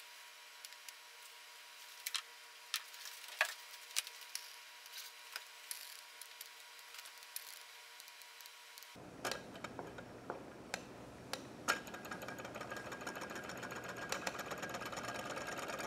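Scattered faint clicks and taps, then from about three-quarters of the way in a small hot-plate Stirling engine with a propeller starting to run. Its pistons make a fast, even rattle that grows slightly louder, a sign that the engine has just got hot enough to overcome friction.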